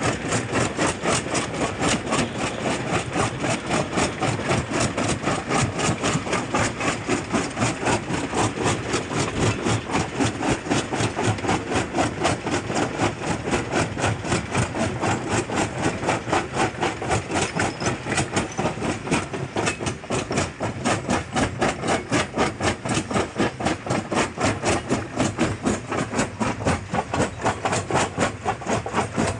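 Jaw crusher running and crushing rock blocks between its ribbed jaw plates: a steady, rapid knocking of about four to five strokes a second, with the stone cracking and grinding.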